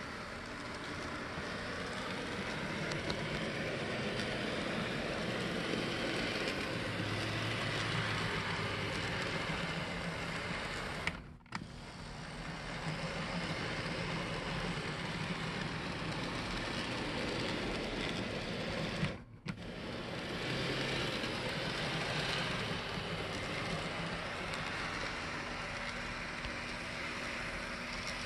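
Märklin Z scale GP38-2 model diesel locomotive running steadily around the track: the small electric motor runs with a low hum under the rattle of its wheels on the rails. The sound drops away briefly twice, near the middle and about two-thirds of the way through.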